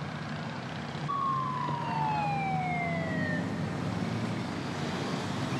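Motorcycles riding past in a convoy, their engines a steady low rumble, while a siren slides down in pitch once for about two seconds, starting about a second in.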